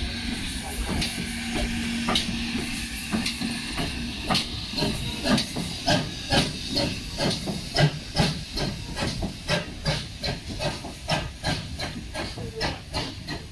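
Steam locomotive L92, an ex-GWR 5700-class pannier tank, hissing steam, then starting away with exhaust chuffs that begin about four seconds in and steadily quicken as it gathers speed.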